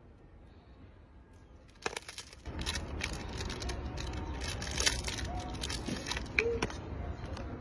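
Plastic snack-cake wrapper crinkling and crackling in quick irregular bursts as a macaque handles and tears into it, starting about two seconds in, over a low rumble.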